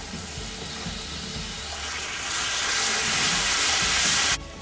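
Jaggery and water sizzling in a hot nonstick pan as they melt into syrup. The hiss swells about two seconds in and cuts off suddenly shortly before the end.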